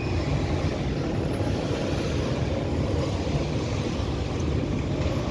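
Container freight train rolling past, a steady low rumble with no distinct clanks or horn, heard from high above.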